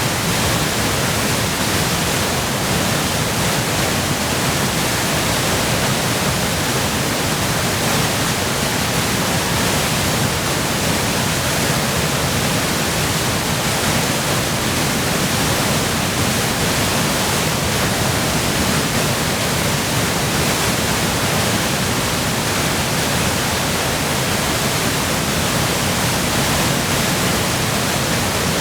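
Waterfall in full spate, swollen by spring melt and heavy rain: a loud, steady rush of falling water with no breaks.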